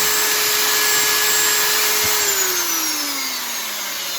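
Electric drill running at full speed in its other direction of rotation, a steady whine; about two seconds in the trigger is let go with a click and the motor winds down, its pitch falling. It runs well after repair of a damaged, pinched power wire.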